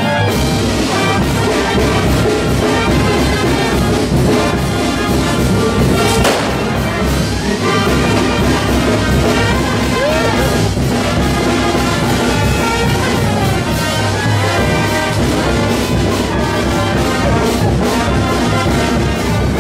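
Brass band music with trumpets and trombones playing steadily, with a single sharp crack about six seconds in.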